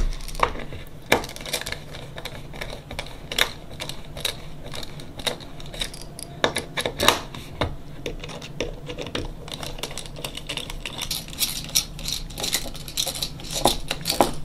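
Small screws being driven into a sensor housing with a precision screwdriver: an irregular run of light clicks and ticks of the metal tip and screws against the case.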